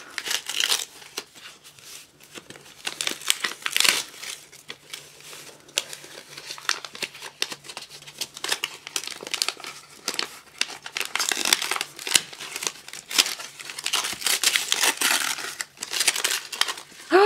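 Christmas wrapping paper being torn and crinkled by hand as a gift is unwrapped, in irregular rips and rustles.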